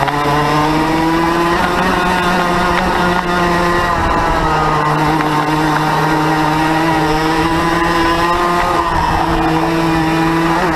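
Onboard sound of a racing go-kart's air-cooled 100cc two-stroke engine running hard at high revs. The revs hold mostly steady and dip briefly about four seconds in, as it lifts for a corner, then climb again.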